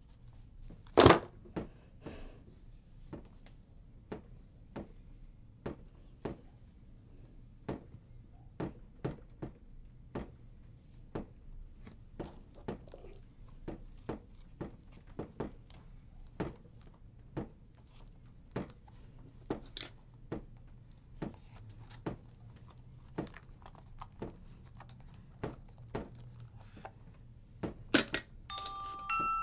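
Irregular small clicks and knocks of a metal toy robot's parts being handled and worked on, about one or two a second, with a louder knock about a second in and a cluster near the end, over a low steady hum.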